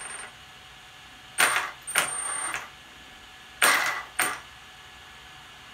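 Lehner 3060/6 brushless motor on an MGM 400A ESC jerking the 1/5-scale car's drivetrain in short stuttering bursts at light throttle, four in two pairs, each starting sharply. This is cogging: the ESC's minimal starting power is set too low.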